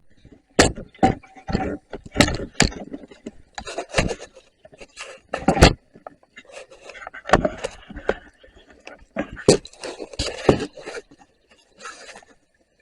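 Irregular knocks and clatter of hard objects being handled, with bouts of scraping between them.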